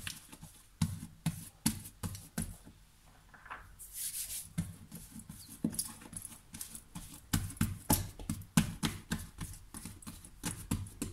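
Hands patting and pressing a soft, rested bread dough ball flat on a floured granite countertop: a run of irregular soft slaps and taps, several a second, with a brief rubbing swish about four seconds in.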